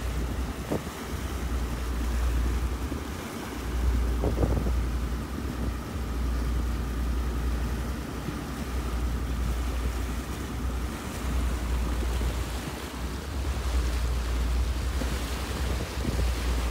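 Wind buffeting the microphone on a motorboat under way, over the rush of its wake and the drone of its engine.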